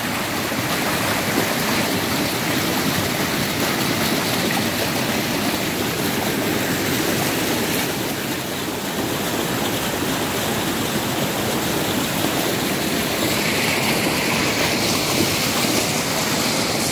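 Fast mountain stream rushing in whitewater over rocks, a steady, unbroken rush of water close by.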